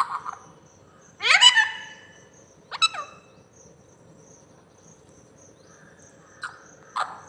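Alexandrine parakeet calling: a loud call with a gliding pitch about a second in, a shorter sharp call near three seconds, then a few short, sharp calls near the end.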